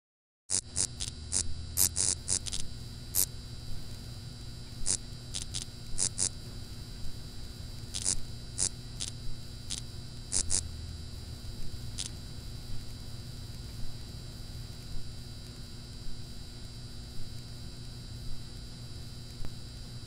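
Neon sign buzzing with a steady electrical hum, with irregular sharp crackling clicks as the tubes flicker on. The clicks come thick for the first few seconds, thin out and stop about halfway through, leaving the hum alone.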